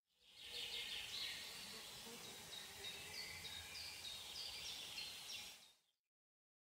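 Woodland ambience: small birds chirping and twittering over a soft steady hiss. It fades in at the start and fades out shortly before the end.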